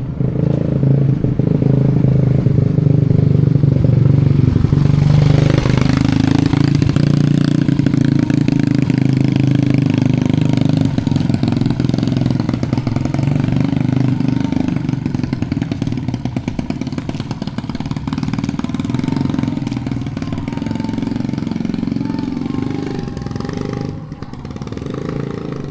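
Motorcycle engine running close by, loudest around five seconds in, then gradually fading and dropping away near the end.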